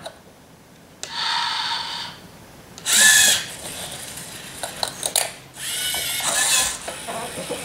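LEGO Mindstorms EV3 servo motors whining in three short runs as the robot arm turns and lowers toward a wheel, with a few clicks between the runs.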